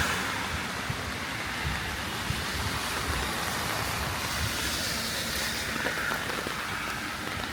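Heavy rain falling steadily, a continuous hiss with scattered drop ticks. Tyre hiss from traffic on the wet road swells about five seconds in.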